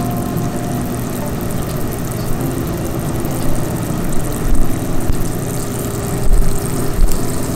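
Saucepan of water boiling on a gas stove: a steady bubbling rumble, with a few low thumps in the second half.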